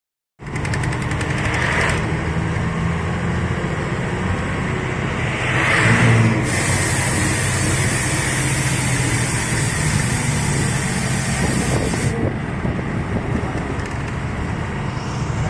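Bus engine running steadily with road noise. A louder hiss comes in from about six to twelve seconds in.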